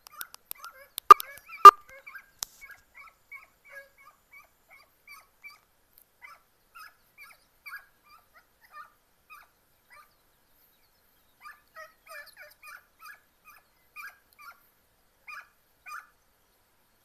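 Segugio italiano hounds, a puppy among them, giving short high yipping cries while trailing scent, in quick runs with a pause midway. Two sharp, loud cracks about a second in.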